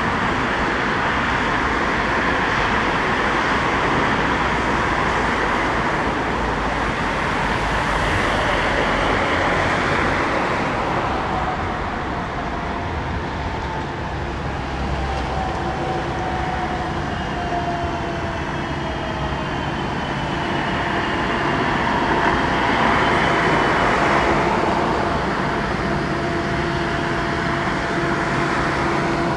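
Train moving through a railway station: a steady rumble with an electric whine that falls in pitch midway, then steady tones held toward the end.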